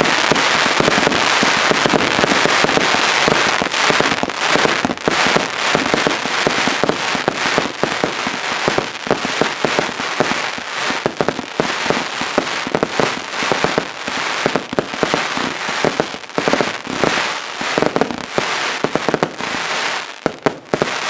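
Broekhoff Avalanche Thunder compound fireworks cake firing. A dense, unbroken crackle fills the first few seconds, then it turns to rapid, separate bangs that go on unevenly and stop near the end.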